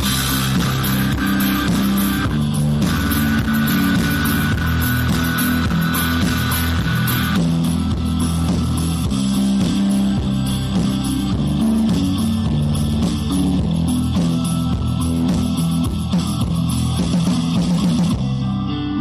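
Background instrumental music with no speech, continuing steadily; its higher sounds drop away near the end.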